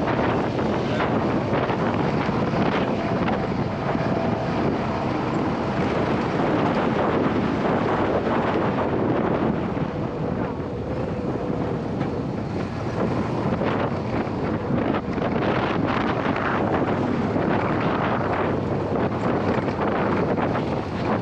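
Wind buffeting the microphone over the steady running of an open UTV driving off-road.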